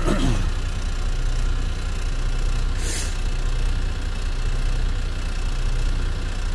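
Detroit DD13 inline-six diesel idling steadily at about 600 rpm, a low even rumble. A brief falling tone right at the start, and a short hiss about three seconds in.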